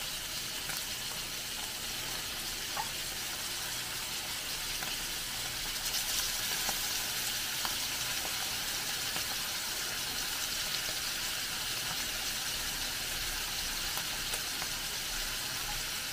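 Adobo-simmered chicken pieces frying in hot oil in a stainless steel wok: a steady sizzle, with a few faint clicks of metal tongs.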